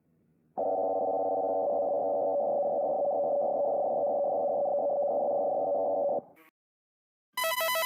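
Emergency alert attention tone: a steady, buzzy electronic tone that holds for about five and a half seconds, then cuts off with a click. After a short silence, a different, higher alert tone starts pulsing near the end.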